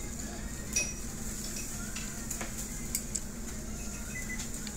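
Meat sizzling on the wire grate of a tabletop yakiniku grill, a steady hiss over a low hum, with a few light clicks of tongs and utensils about a second in and again between two and three seconds.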